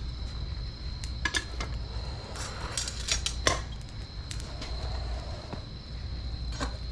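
Scattered light metallic clinks and taps, in two clusters and once more near the end, over a steady low hum and a steady high whine.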